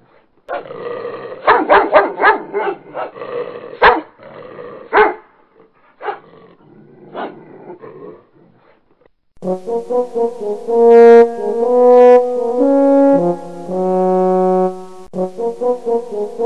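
Dogs barking at a toy lion: a quick flurry of sharp barks, then single barks a second or so apart. About halfway through, horn-like brass music takes over, moving in held notes that step up and down.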